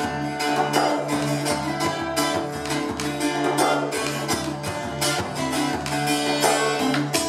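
Open-tuned Irish bouzouki played in fast, rhythmic strumming over a steady low tone, with an Arabic frame drum played by hand alongside. It is an instrumental passage with no singing.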